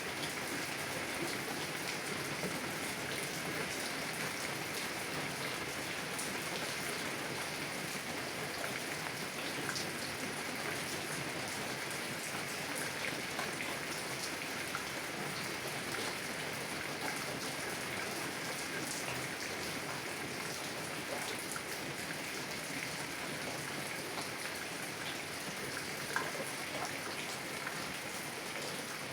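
Heavy rain hitting a car's window, heard from inside the car: a steady, dense patter of drops, with one sharper single drop hit near the end.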